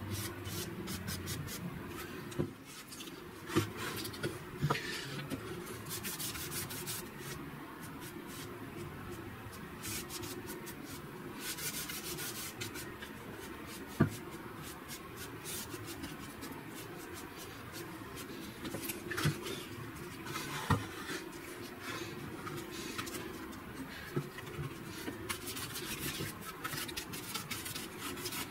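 A cloth rubbing and wiping over a wooden surface, with a few sharp knocks of wood being handled.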